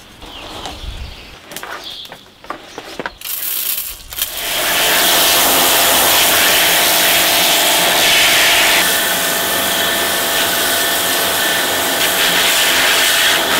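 Pressure washer running: its water jet blasts against a slate rubble-stone wall, washing the old mortar and clay out of the joints. It starts about four seconds in and then runs steadily and loudly, with a faint steady hum from the machine underneath.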